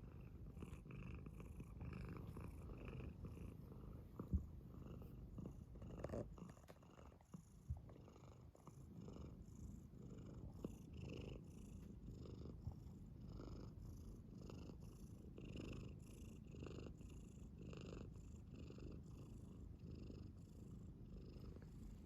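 Faint, low, continuous animal rumble, with a sharp tick about four seconds in.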